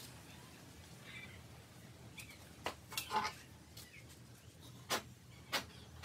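A few scattered sharp metal clicks and clinks from the homemade lathe's slide parts being handled and moved, with faint chirps in the background.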